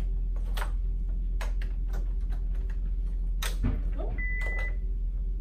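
Plastic clicks and knocks of a pads cable connector being worked into the socket on a Philips MRx defibrillator, with a short electronic beep about four seconds in.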